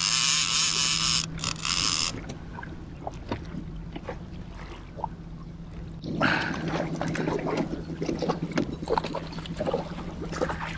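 A fishing reel's drag buzzing for about two seconds at the start, with one short break, as a hooked landlocked salmon pulls out line. From about six seconds in, the salmon splashes at the surface beside the boat as it is netted. A steady low hum of the boat's motor runs underneath.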